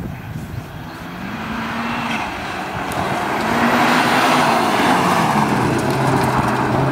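Seat Leon Cupra's turbocharged four-cylinder engine driven hard through a slalom. The revs rise and fall several times between the cones, then drop lower about two-thirds through as the car lifts off for a turn. It grows louder as the car approaches and passes close by.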